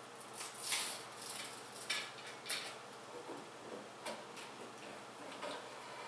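Hands working on a desktop PC build: irregular small clicks, taps and rustles of plastic and metal parts and cables being handled, with a few sharper clicks in the first three seconds.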